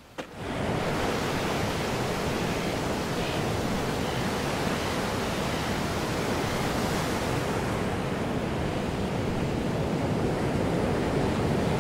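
Steady rushing noise of outdoor ambience that cuts in abruptly in the first second.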